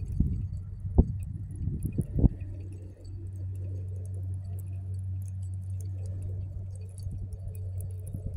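Spinning rod and reel being worked to retrieve a lure, with wind rumbling steadily on the microphone and two sharp knocks about one and two seconds in.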